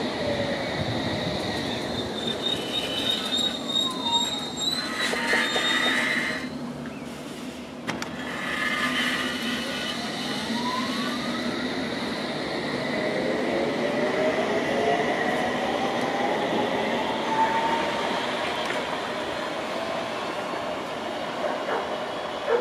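London Underground S8 Stock Metropolitan Line train pulling out of the station, its motors whining and rising in pitch as it gathers speed, with a high steady squeal from the wheels.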